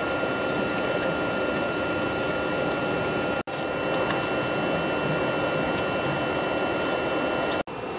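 Running noise inside the carriage of a moving electric passenger train: a steady rush and rumble with a constant high whine over it. It cuts out very briefly twice, about three and a half seconds in and near the end.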